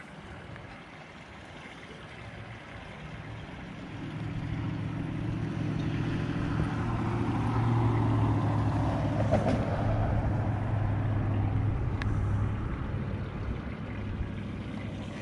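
An engine hums steadily at a low pitch, growing louder from about three seconds in, loudest past the middle, then easing off a little near the end, like a motor passing at a distance.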